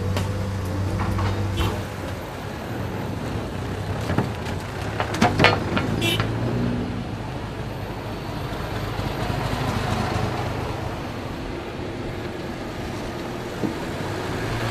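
Motor vehicle engine running with road noise while driving, with a few sharp knocks about four to six seconds in.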